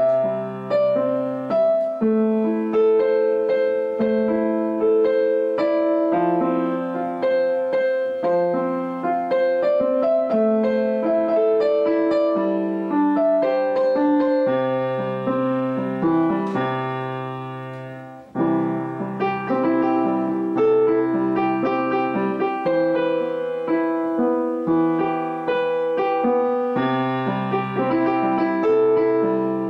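Solo piano music, a steady run of chords and melody notes, which dies away briefly past the halfway point and then resumes.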